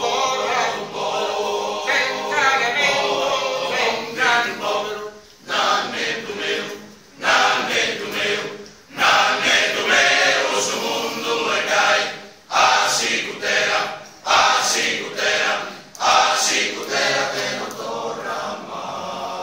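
Sardinian male choir singing a cappella in several-part harmony. The singing comes in phrases a couple of seconds long, with short breaks between them.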